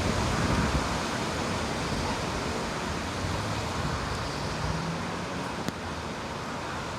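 Strong wind blowing, buffeting the microphone with low rumbles during the first second, then easing into a steady rushing hiss.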